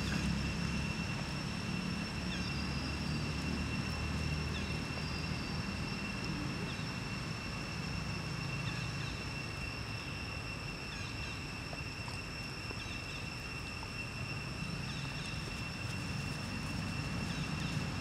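Outdoor ambience: a steady low rumble under a constant high-pitched whine, with a few faint chirps.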